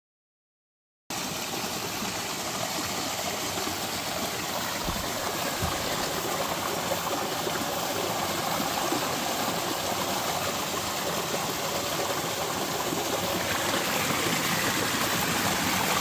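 A mountain stream cascading over rocks into a pool, steady rushing water. It cuts in abruptly about a second in after silence.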